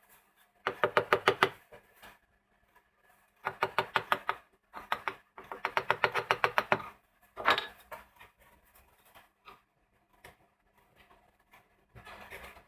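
Several bursts of rapid, evenly spaced sharp knocks or clicks, about ten a second, each run lasting up to about a second and a half, in the first half; then mostly quiet.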